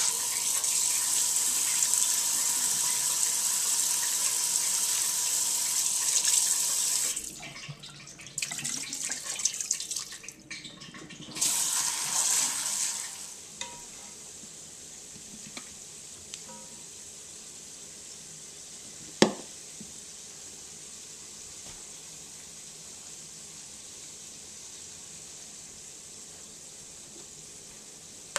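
Kitchen faucet running into a plastic bowl of cut imitation crab meat held in the sink, for about seven seconds. Then it stops, with some handling, and the water runs again briefly about eleven seconds in. After that, quiet room tone broken by one sharp knock about nineteen seconds in.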